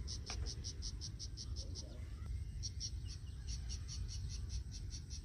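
An insect chirping in a steady, even pulse, about five short high chirps a second, over a low rumble.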